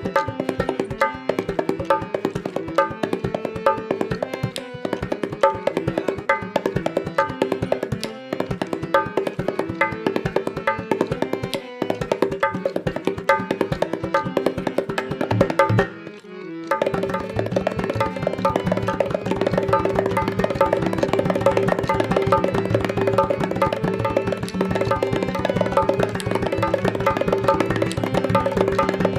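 Indian hand drum played in a fast, steady rhythm over a held tone. The playing breaks off briefly about sixteen seconds in, then resumes denser.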